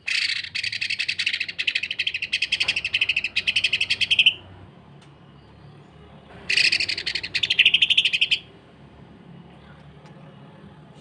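Cucak ijo (green leafbird) singing rough, rapid 'sewing-machine' notes in two bursts: a chattering rattle of fast pulses lasting about four seconds, then a second, shorter burst of about two seconds starting some six seconds in.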